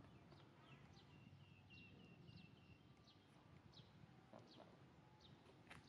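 Faint high chirping calls: many short downward-sweeping chirps, with a quick run of repeated notes about a second in and a sharper chirp near the end.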